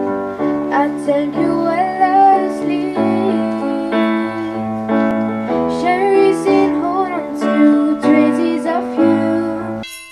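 A girl singing with piano accompaniment played on a Casio electronic keyboard. The song cuts off abruptly near the end.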